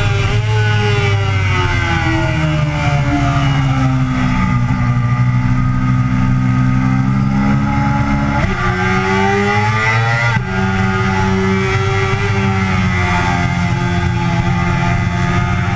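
Yamaha sport bike engine on track at speed. Its note falls steadily while braking hard into a corner, holds steady through the turn, then jumps and climbs as the throttle opens. A quick gear change drops the pitch sharply about ten seconds in, and the engine keeps pulling.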